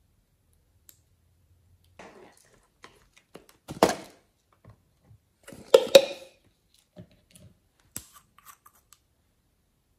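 Slime and clay being squeezed and pressed by hand: scattered sticky crackles and squelches, loudest about four and six seconds in.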